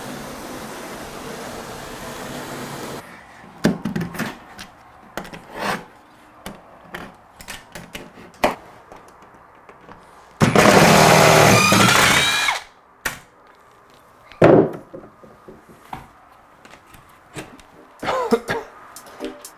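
Power drill running in one loud two-second burst about ten seconds in, backing fasteners out of a wall-mounted pegboard frame. Before and after it come scattered knocks and thumps as the panel is worked loose and lifted off, with a steady hiss at the start.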